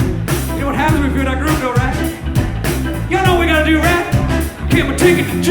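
Live band playing an upbeat rock-and-roll song, with steady bass, drum hits and a wavering lead line on top.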